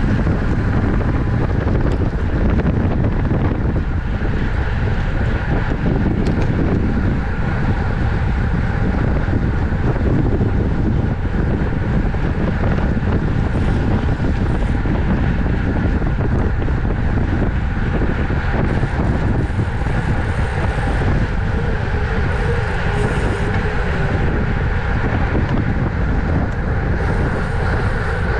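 Steady wind rushing over an onboard camera's microphone on a racing road bicycle, with road and tyre noise underneath.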